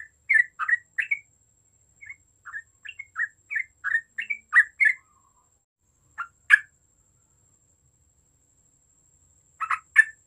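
Yellow-vented bulbul calling: runs of short chirped notes, about three a second, through the first five seconds, then a pair of notes, a pause of about three seconds, and a quick pair near the end.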